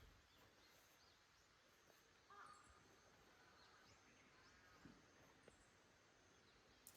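Near silence: faint outdoor ambience, with a faint bird call about two seconds in.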